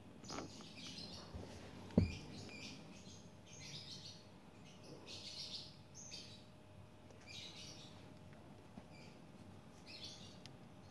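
Faint bird chirps, short calls repeating every second or so, with a single sharp click about two seconds in.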